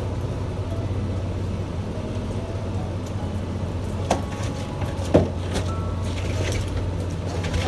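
Boat engine running steadily with a low hum, with two short sharp knocks about four and five seconds in.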